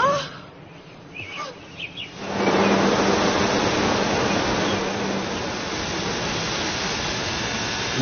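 Backpack vacuum cleaner running in reverse as a blower: a loud, steady rush of air starts about two seconds in, with a low hum under it for its first few seconds. A few short chirps come before it.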